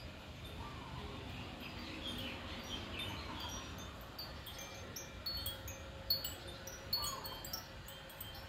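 Wind chime tinkling in light, scattered strikes that grow busier in the second half, with a few short chirping calls now and then.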